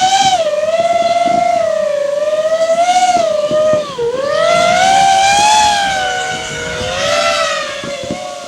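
FPV racing quadcopter's brushless motors whining, the pitch swooping up and down with the throttle, dipping sharply about four seconds in before climbing again, then easing off near the end.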